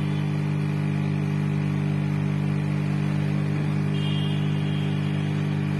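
Hot air rework gun blowing steadily on airflow setting 5. It makes a constant motor hum with a rush of air as it heats a phone's back glass to melt the adhesive.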